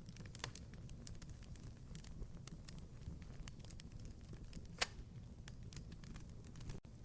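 Wood fire crackling in a fireplace: many small, irregular snaps over a steady low noise of burning, with one sharp, louder pop a little before five seconds in.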